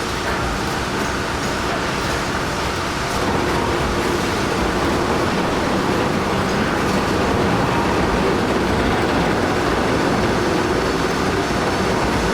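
Heavy machinery running: a loud, steady, dense rumble with no distinct tones, growing a little louder about three seconds in.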